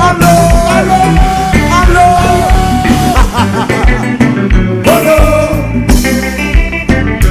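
Kompa band playing loud through a club sound system, with a steady kick-drum beat about twice a second under long held melody notes.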